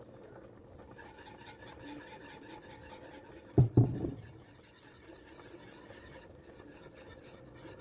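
Faint scraping of a spoon stirring in a cooking pot, with two sharp knocks in quick succession a little past halfway.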